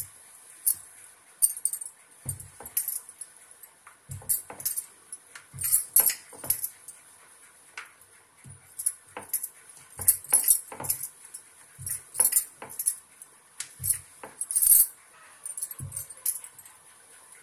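Glass bangles clinking and jingling on the wrists while a wooden rolling pin rolls out buckwheat dough on a marble board, with soft knocks of the pin and board every second or two.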